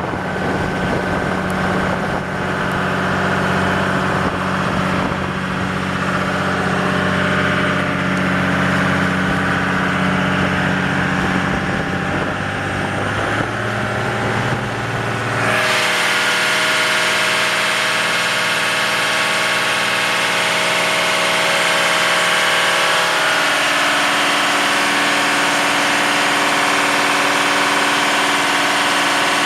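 Boat engine running steadily with an even drone. About halfway through the sound changes abruptly: the deep hum drops away and a higher drone with a broad hiss takes over.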